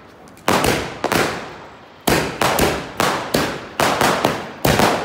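Diwali firecrackers going off in a series of sharp bangs, each trailing off with an echo: a pair about half a second in, then after a short gap a run of bangs roughly every half second.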